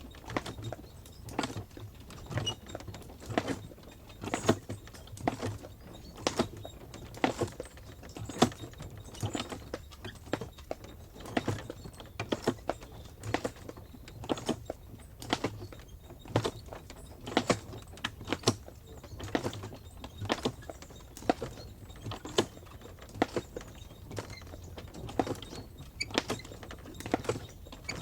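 Horse-drawn stagecoach pulled by four horses: hooves clip-clopping in an uneven, ongoing rhythm over a low rumble, with the harness jingling and the carriage creaking.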